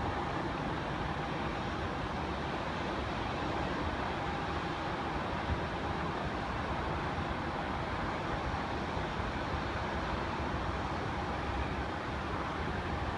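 Steady airport background noise from the aircraft apron: a distant rush of jet engines and ground traffic, with a faint steady high whine in the first few seconds.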